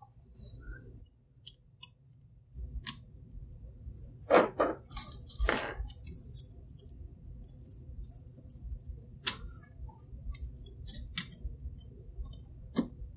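Blue plastic pry tool clicking and scraping against the plastic case and circuit board of an opened power bank as the board is levered out. Scattered sharp clicks, with two louder scrapes about four and five and a half seconds in.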